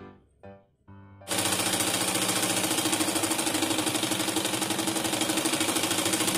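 Black household straight-stitch sewing machine starting up about a second in and then running steadily, its needle stroking in a fast, even rhythm as it sews a straight seam.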